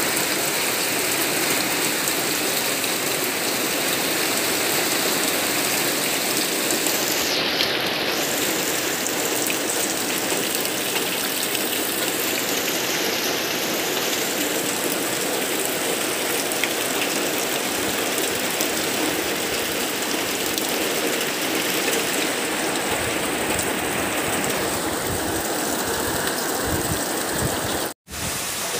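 Heavy typhoon rain pouring steadily onto foliage and ground, a dense, even hiss. It drops out for a moment near the end.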